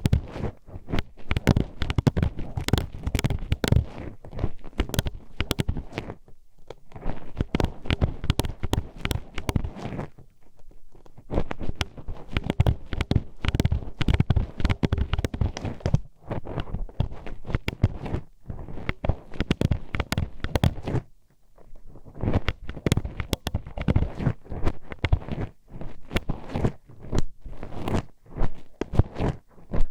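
A metal hairpin poked into and scraped around a microphone's ear, making rapid close-up clicking, clacking and scratching in bursts with brief pauses.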